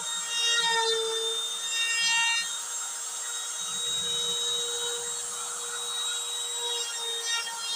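DIY CNC router carving an MDF board: the spindle runs with a steady whine while the bit cuts. The tones shift and break every half second or so as the machine moves the bit through the cut.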